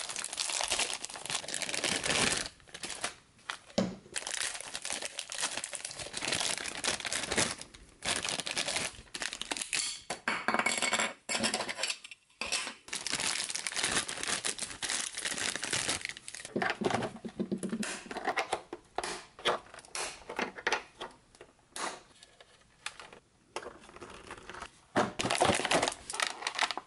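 Clear plastic packaging bags crinkling and rustling as toy parts are unwrapped by hand, in irregular bursts with short pauses.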